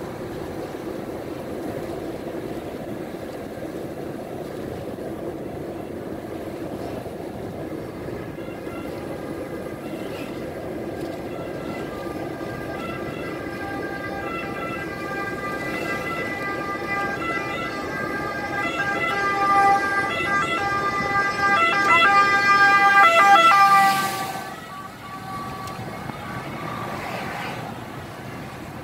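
Fire engine siren over the steady road and tyre noise of a moving car. The siren is faint at first and grows louder over about fifteen seconds. It drops away suddenly about four-fifths of the way in and carries on more faintly.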